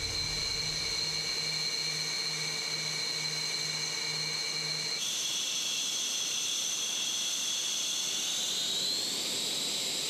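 Jet engine turbine whine, a steady set of high-pitched tones over a low hum that pulses about three times a second. About halfway through it changes abruptly to a different whine, which rises in pitch near the end and then falls.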